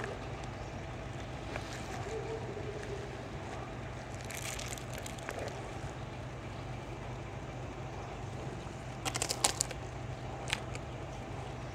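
A cow eating dried colocynth (indrayan) fruit from a hand, with crisp crunching about four seconds in and a quick run of sharp crunches just after nine seconds, over a low steady hum.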